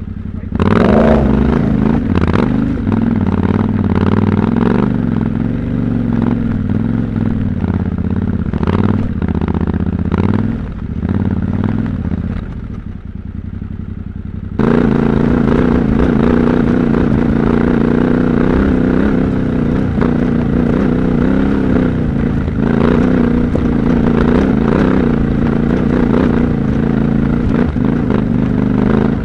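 Yamaha Ténéré 700 Extreme's parallel-twin engine running at low, varying revs off-road, with clattering and scraping from the rough, stony track. About halfway through the sound changes abruptly to a steadier, brighter engine note.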